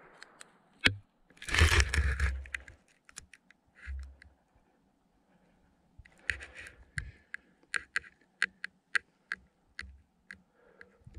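Light rustling and a scatter of sharp, irregular clicks close to the microphone, with quiet gaps between them.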